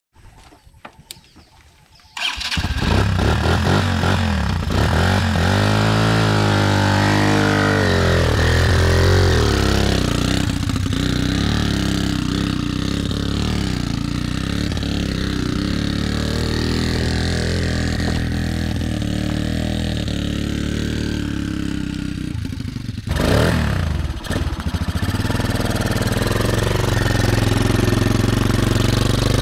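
Homemade trike's motorcycle engine kick-started, catching suddenly about two seconds in, then revved up and down a few times and left running. Near the end there is a brief break, then the engine runs steadily again.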